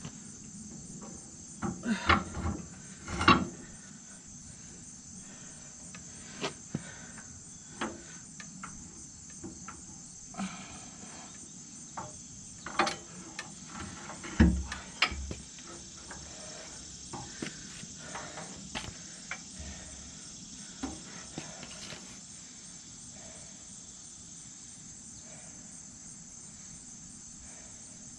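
A steady high insect chorus throughout, with scattered knocks and clanks as a tractor's steel fender is handled and fitted against the tractor, loudest about three seconds in and again around fourteen seconds.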